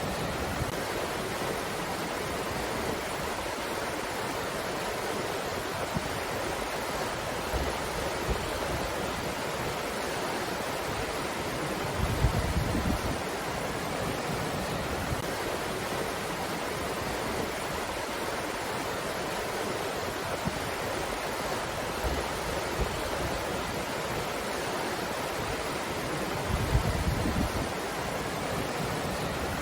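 Steady hiss of wind, with two brief low rumbles of wind buffeting the microphone, about twelve seconds in and again near the end.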